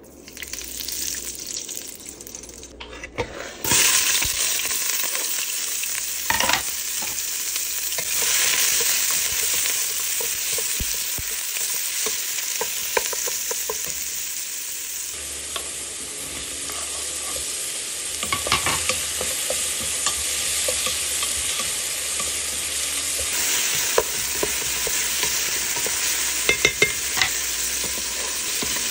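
Diced onion sizzling in hot fat in a stainless steel stockpot, stirred with a wooden spoon that knocks against the pot now and then. The sizzle starts abruptly about four seconds in and then carries on as a steady hiss.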